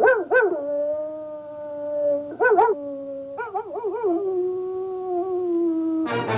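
A wolf howling: three howls, each opening with a few quick wavering yips that settle into a long held note. Orchestral music comes in right at the end.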